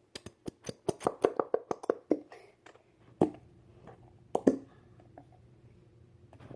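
Slime squelching and popping in quick wet clicks as it is pressed and squeezed out of its small tub: a dense run for about two seconds, then two louder single pops about three and four and a half seconds in.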